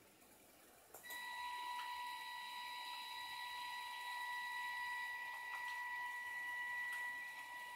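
TETRIX DC gear motors driving a small robot in a right turn, giving off a steady high whine that starts about a second in and holds at constant speed.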